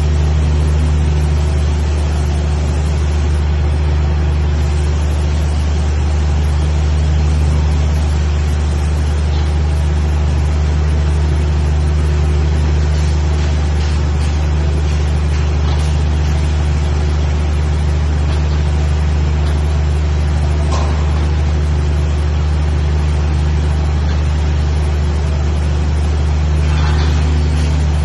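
Steady low hum of running machinery, unchanging in level, over a noisy hiss, with a faint click about twenty seconds in.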